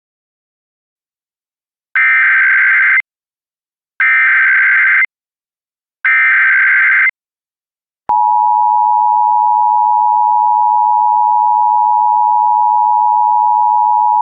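Emergency Alert System tones: three one-second bursts of SAME header data, a rapid digital warble, about two seconds apart. Then, about eight seconds in, the steady two-tone EAS attention signal starts and holds.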